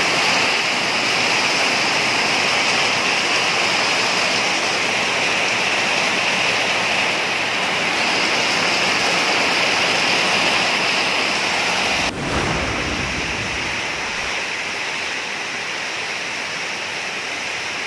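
Heavy tropical rain pouring down onto corrugated metal roofs, a loud, steady rush of water. About twelve seconds in there is a sharp click, after which the rain sounds a little softer.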